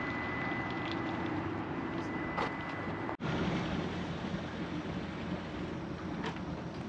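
Engine idling steadily, with wind on the microphone. A thin steady high tone stops about two seconds in, and the sound cuts abruptly about three seconds in to a stronger, lower idle hum.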